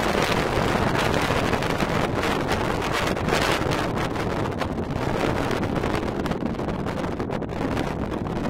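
Strong gusty wind buffeting the microphone, over the steady jet-engine noise of a widebody twin-jet airliner on final approach.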